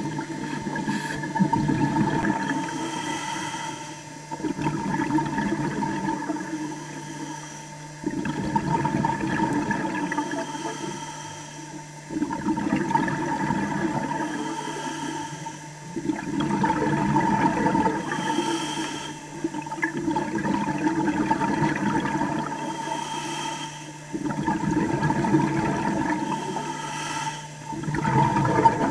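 Underwater sound of bubbling, rushing water that swells suddenly and fades about every four seconds, over a steady hum.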